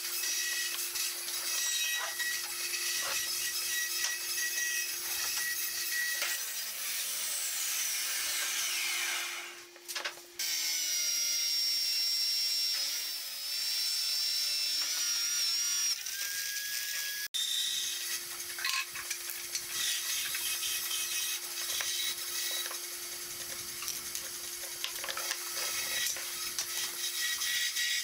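Electric power tools working wood: a steady motor hum with scraping, cutting noise. For several seconds in the middle, an electric drill mounted in a wooden stand runs at a steady, slightly wavering pitch while boring into a board.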